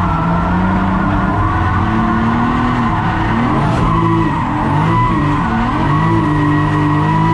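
700 HP Toyota Supra drift car heard from inside the cabin, its engine revving up and down at high revs while the rear tyres skid and squeal through a drift. In the second half the engine pitch holds steadier.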